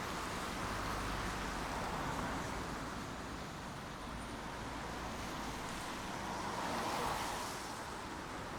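Steady rain, an even hiss that swells a little about seven seconds in.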